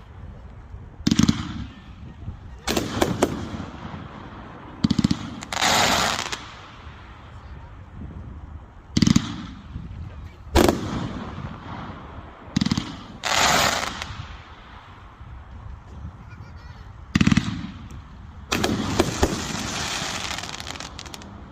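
500-gram consumer firework fan cake firing in volleys: quick clusters of sharp shots a second or few apart, several of them running into longer stretches of crackling.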